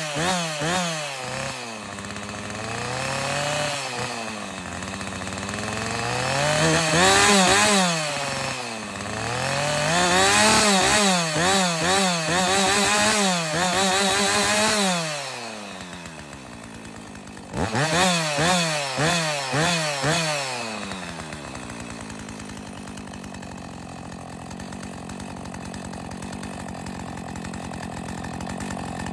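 Two-stroke chainsaw engine being revved up and down over and over, dropping back about halfway through, then blipped several times in quick succession before settling to a steady idle for the last several seconds.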